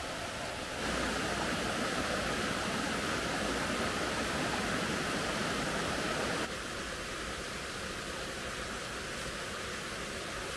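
Steady rushing of a forest stream. It gets suddenly louder about a second in and drops back just as suddenly after about six and a half seconds.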